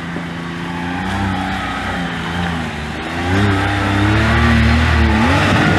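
Side-by-side UTV engine running and revving, getting louder about three seconds in as the revs rise and fall.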